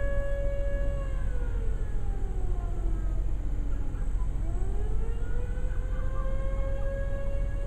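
Federal Signal borough fire siren sounding: it holds a steady high pitch, winds down to a low pitch from about a second in, then winds back up to full pitch.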